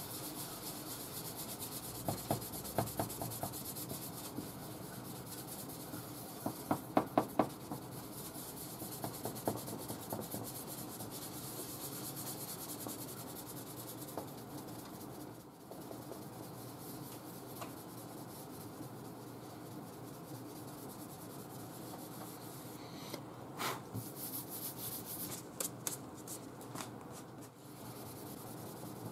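Hand dry-sanding of a paint run in automotive clearcoat with 1200-grit paper on a small Tolecut sanding block: a steady scratchy rubbing of paper on paint, with a few spells of short, quick back-and-forth strokes.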